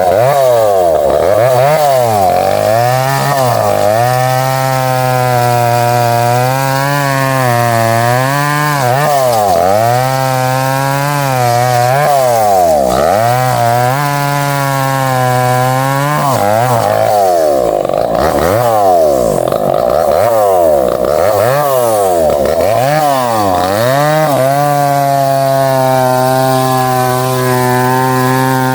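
Chainsaw cutting into a thick tree trunk. The engine's pitch drops and climbs again every second or two, with stretches where it holds steady, including near the end.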